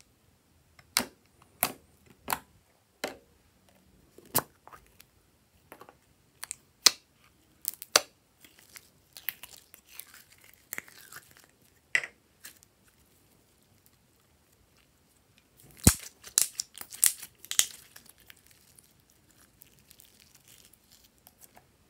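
Purple glitter slime squeezed out of its container and stretched by hand. It gives off sharp sticky pops and clicks, a few seconds apart at first, then a quick run of crackling about two-thirds of the way through.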